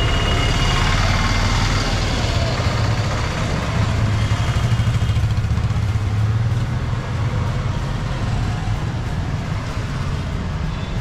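Street traffic: vehicle engines running and passing close by, with a low engine rumble loudest around the middle. A faint horn sounds briefly at the start and again a few seconds in.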